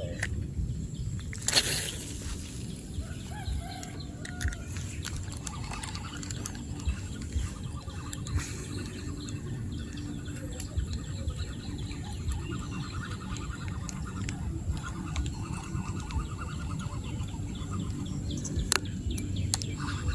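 Faint bird calls over a steady low rumble, with one sharp rustle or knock about a second and a half in.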